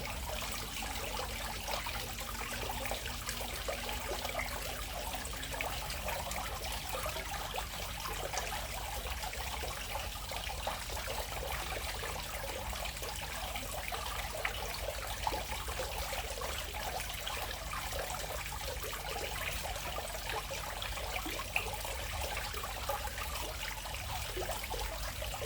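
Dense chorus of many frogs calling at once, their short calls overlapping into a continuous busy chatter.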